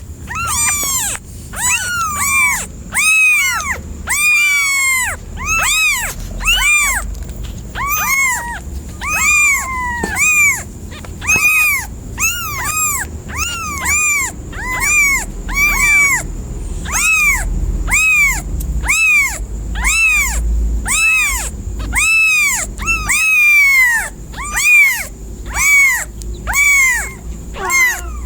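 A kitten meowing over and over, about once a second, each high-pitched call rising and then falling: the insistent calls of a kitten crying for its mother.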